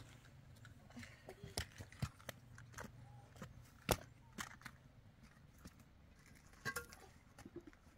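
Small open wood fire crackling, with irregular sharp pops and one louder pop about four seconds in.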